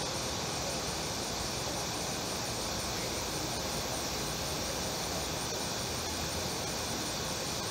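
Steady chorus of evening insects, with an evenly pulsing high trill on top, over low background noise.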